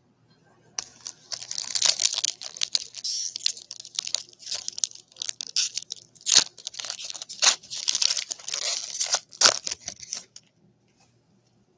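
Foil wrapper of a trading-card pack being torn open and crinkled by hand. A dense run of crackling and tearing starts about a second in and stops about ten seconds in.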